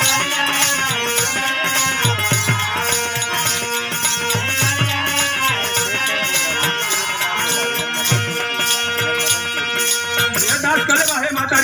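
Instrumental interlude of a live Bhojpuri devotional folk song: held melodic notes over a steady beat of kartal jingles, about three strokes a second, with clusters of low drum strokes.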